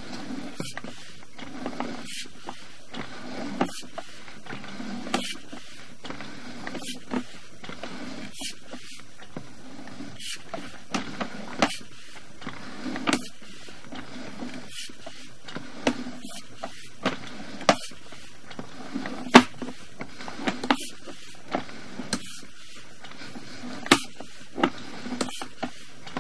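Sewer inspection camera's push cable being drawn back and wound onto its reel. A steady low rumble is broken by irregular sharp clicks, about one or two a second.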